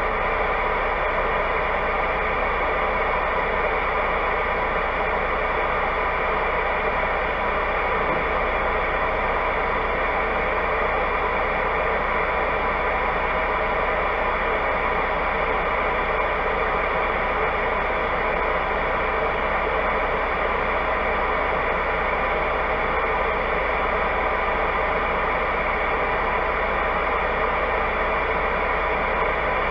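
Steady, even hiss and hum inside a stopped semi-truck's cab, picked up by a dash cam microphone while the truck idles.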